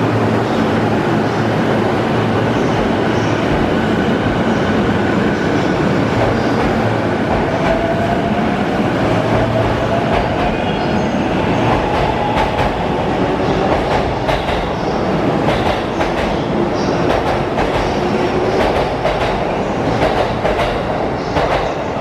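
E233 series 1000 electric commuter train pulling out from a standstill. The motor whine rises in pitch as it speeds up, and from about halfway in the wheels clack more and more often over the rail joints as the cars pass.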